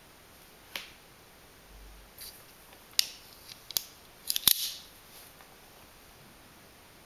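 Metal clicks from a 9-inch AKC swinguard bayonet switchblade stiletto being closed by hand: a few single clicks, then a quick cluster of sharp snaps about four and a half seconds in, the loudest, as the blade folds down into the handle.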